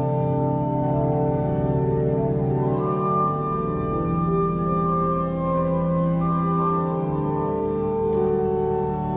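Church pipe organ playing slow, sustained chords over deep held bass notes, the harmony changing every second or two.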